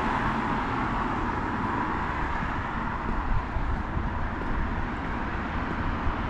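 Road traffic noise: a steady hiss of passing vehicles with a low rumble, a little louder at the start and easing off.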